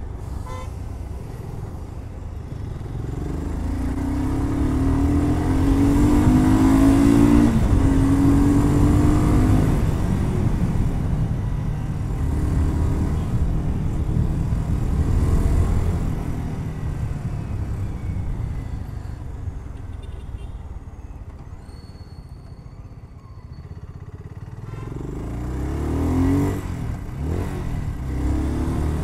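BSA Gold Star 650's single-cylinder 650 engine and exhaust under way. The engine pulls up through the revs with rising pitch about four to ten seconds in, eases back to a lower steady note, then revs up again near the end.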